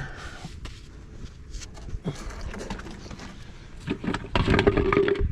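Clicks, knocks and rustling of hands and tools at work, busier from about four seconds in, with a short steady squeak near the end.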